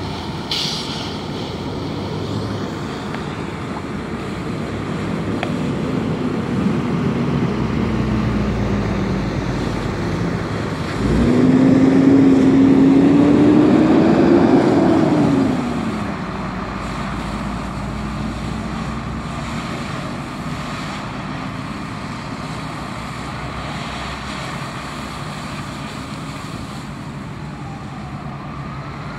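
Fire engine running while a hose sprays water onto a burning car, giving a steady engine drone under the hiss of spray and steam. About eleven seconds in, the engine note rises and grows louder for about five seconds, then drops back.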